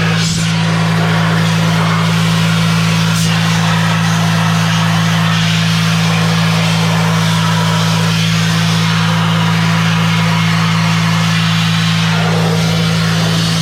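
A vehicle engine running steadily at one constant speed throughout.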